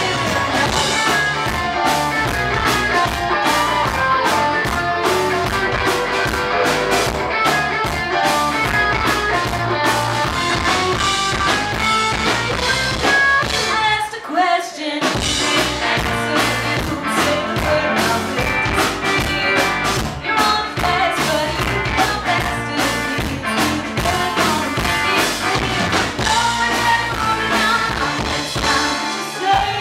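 Live rock band playing a song with singing, over keyboard, drum kit, electric guitar and bass. About halfway the band drops out for a moment and then comes back in.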